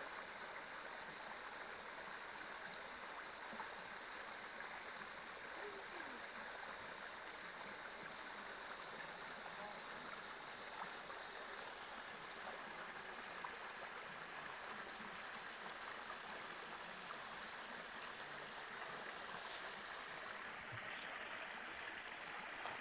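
Small rocky creek trickling over stones, a steady water hiss.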